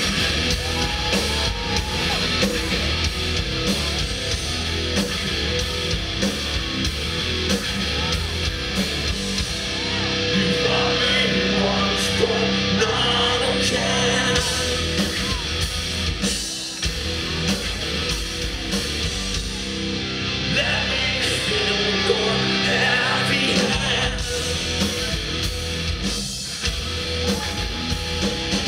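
Hard rock band playing live: distorted electric guitars and drums with a male lead vocal, recorded from within the audience.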